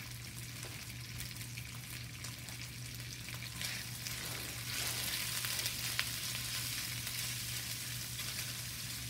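Diced raw chicken sizzling in hot oil in a stainless steel pan. The sizzle grows louder about four seconds in, when a spatula starts stirring the meat, with light clicks of the spatula against the pan.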